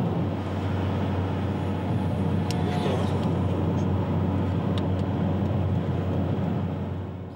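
Car driving along a road, heard from inside the cabin: a steady low engine and tyre rumble with road noise, which cuts off suddenly at the end.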